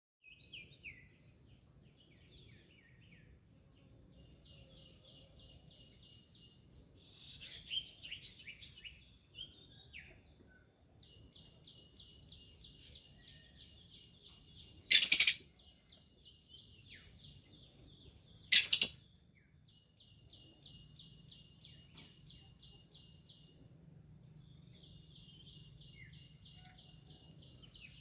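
Songbirds singing: one bird repeats a fast, even trill several times, with scattered chirps from other birds. Near the middle come two loud, brief harsh bursts about three and a half seconds apart.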